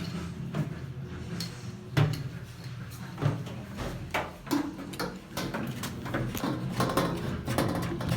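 Irregular clicks and knocks of handling and fitting work over a low steady hum, with the sharpest knocks about two and three seconds in.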